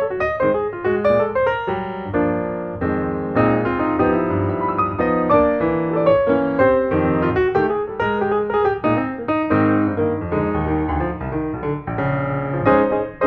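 Background piano music, a melody over chords, with no speech.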